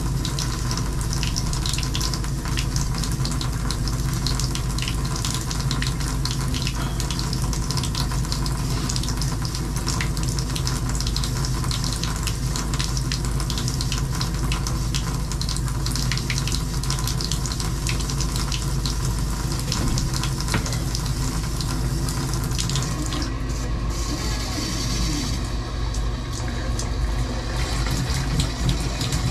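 Water running out of a bare copper tub-spout stub and splashing into a bathtub, a steady rush. Near the end the stream strengthens as the shower valve is opened further.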